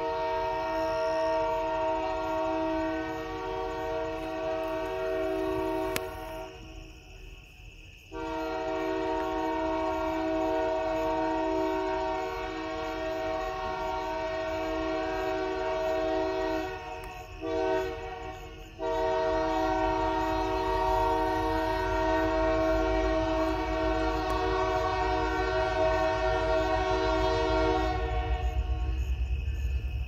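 Canadian Pacific locomotive's multi-chime air horn sounding as the train approaches: a long blast breaks off about six seconds in, a second long blast, a short blast and a final long blast follow, and the last stops shortly before the end. This is the long-long-short-long pattern sounded for a grade crossing. Under the later blasts the low rumble of the approaching locomotive grows.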